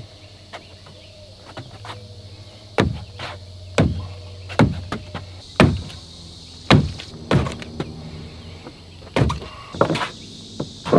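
Heavy green-lumber 2x4 stud wall frame knocking and creaking as it is wrestled upright: a string of sharp wooden knocks, most about a second apart, from a few seconds in. A steady low engine hum from the tractor runs beneath.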